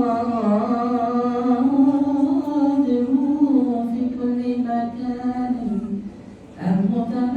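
A single voice chanting a long, drawn-out melismatic phrase of Coptic liturgical chant, unaccompanied. It breaks off about six seconds in, and a new phrase starts shortly after.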